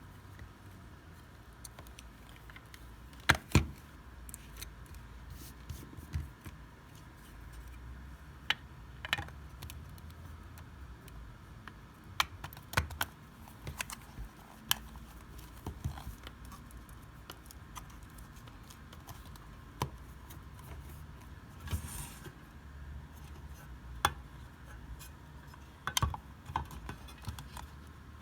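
Irregular small clicks and taps of hands handling small parts and tools, with two sharp knocks close together about three seconds in, over a faint steady hum.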